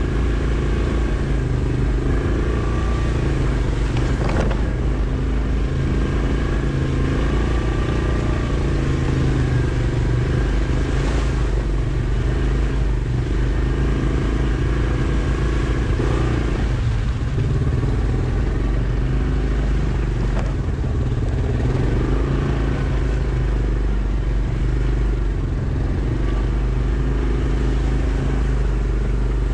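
Yamaha Kodiak ATV's single-cylinder engine running steadily while riding, its pitch wavering a little with the throttle. One brief knock about four seconds in.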